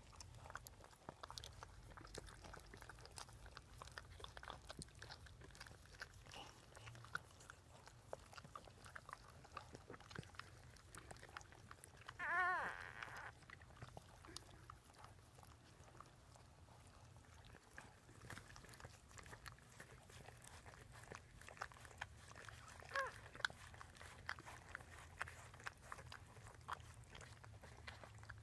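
Dachshunds licking newborn puppies clean: a steady patter of faint wet licking and smacking clicks. About twelve seconds in, a newborn puppy gives a high, wavering squeal lasting about a second, and there is a shorter faint squeak near twenty-three seconds.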